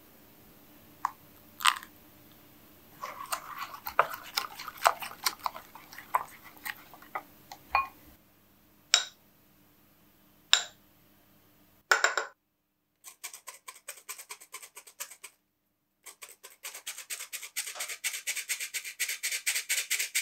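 Kitchen mixing sounds: a balloon whisk tapping and scraping in a ceramic bowl as oil and milk are whisked into egg yolks, then a couple of sharp clicks. From about two-thirds of the way in, a hand-crank flour sifter turns with fast, even clicking and rasping as flour, cocoa and baking powder are sifted into the bowl.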